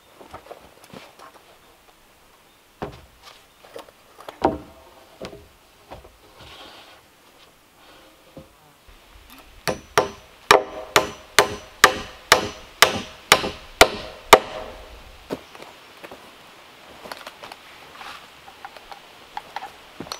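A few scattered wooden knocks, then a hammer driving a nail through a sawn board into a log rail: about a dozen sharp, slightly ringing strikes, two a second.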